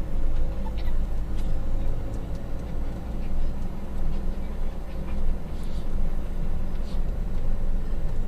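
Camper van driving, heard from inside the cab: a steady low rumble of engine and road noise, with a few faint clicks.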